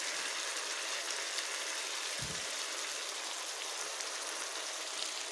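Fried potatoes and carrots sizzling in a pan of beef apritada sauce: a steady frying hiss.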